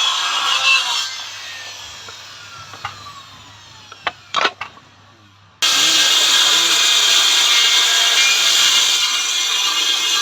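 Handheld circular saw cutting wooden boards. Its blade winds down with a falling whine, with a few sharp knocks near the middle. Then the saw is cutting through wood again, suddenly loud and steady.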